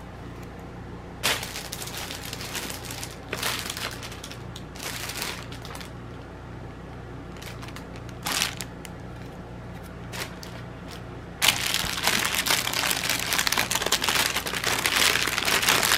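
A few short rustles as the kit's packaging is handled, then continuous crinkling of a clear plastic bag through the last few seconds as hands work inside it.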